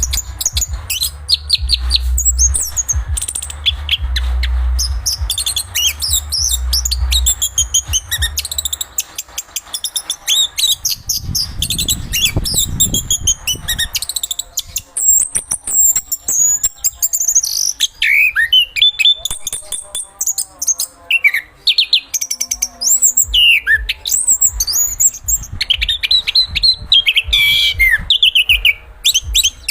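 Anis kembang (chestnut-capped thrush) singing a long, fast, varied song of rapid whistled and chattering phrases, with many quick rising and falling notes. A low rumble runs underneath for the first third.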